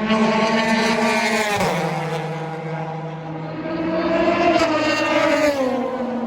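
Two endurance race cars passing by at speed, one after the other. Each engine's pitch drops as it goes past, the first about one and a half seconds in and the second near the end.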